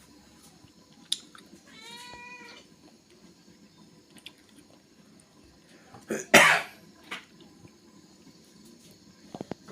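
A cat meows once, a short pitched call about two seconds in. About six seconds in comes the loudest sound, a short, harsh noisy burst, with a few sharp clicks scattered around.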